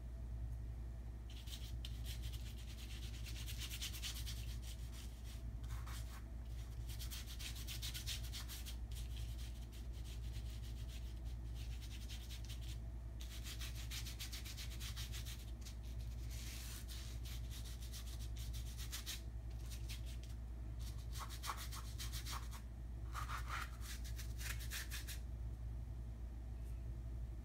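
Paintbrush scrubbing acrylic paint across canvas in rapid strokes, in spells of a few seconds with short pauses between them, over a steady low hum.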